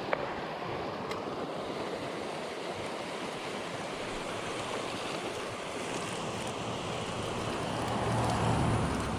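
Blacksmith Fork River's flowing water rushing steadily, swelling a little louder about eight seconds in.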